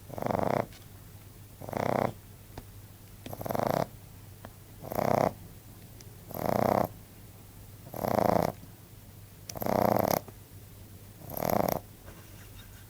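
A Frenchbo (French bulldog–Boston terrier cross) puppy snoring in his sleep: eight even snores, each about half a second long, one every second and a half or so.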